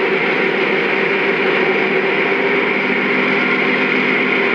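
Lionel GE Evolution Hybrid model locomotive's onboard sound system playing its diesel engine sound at RPM level 4, running steadily through the model's speaker while the rear radiator fans spin.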